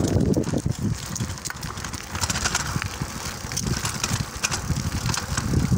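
Mountain bike rolling along a concrete path, wind buffeting the microphone with a fluttering rumble, and small clicks and rattles from the bike and tyres.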